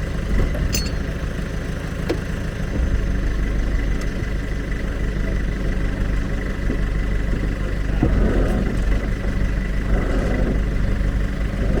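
Caterpillar backhoe's diesel engine running steadily, its low note shifting about three seconds in, with a few faint clicks.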